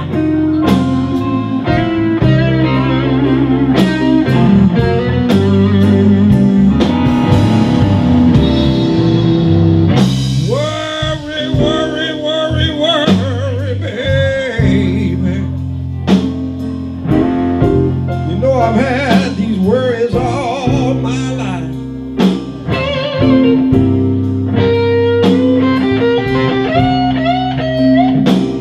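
Live blues band playing: a Les Paul-style electric guitar lead with bent notes over bass, drums and keyboard.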